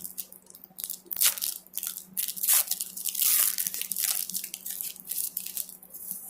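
Crinkly wrapper of a trading card pack being torn open and crumpled, an irregular run of crackling and tearing.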